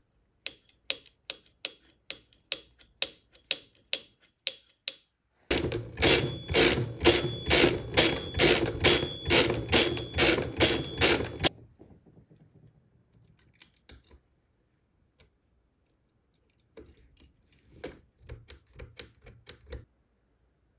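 Bell of a 1920s Odhner Model 8 arithmometer struck over and over by its hammer, worked by hand from the bar that drives it, about two or three dings a second, each ringing briefly. The dinging gets louder about five seconds in and stops about halfway through. A few fainter clicks of the mechanism follow near the end.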